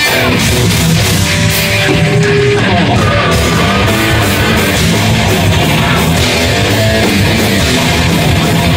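Live heavy metal band playing loud and without a break: distorted electric guitars and bass over drums with a fast, steady beat.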